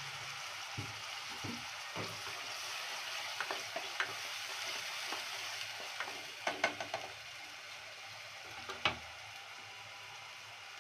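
Chopped onions sizzling steadily in hot oil in a nonstick pot, with a spatula stirring them and knocking against the pot in a few short clicks, most of them a little past the middle and again near the end.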